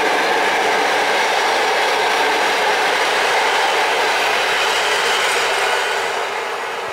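PKP Intercity passenger coaches rolling past on the rails, a steady running noise of wheels and bogies that begins to fade near the end as the last coach moves away.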